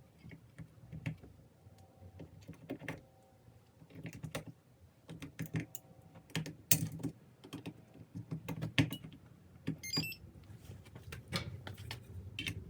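Irregular clicks, taps and knocks of hands working a keypad deadbolt lock and its door hardware, with a short rapid run of high beeps about ten seconds in.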